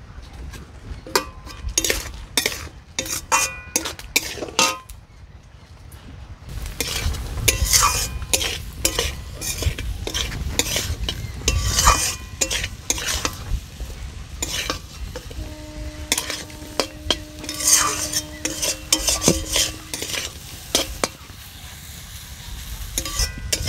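Potatoes, onion and spices in a little water sizzling in a pan while being stirred and scraped with a spatula, being cooked down. Sharp scrapes and knocks of the spatula on the pan throughout, with the sizzling growing stronger about six seconds in.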